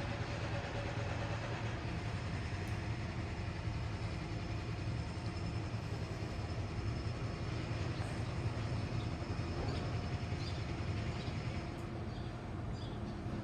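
Train running with a steady low rumble and a few faint steady tones, easing off near the end.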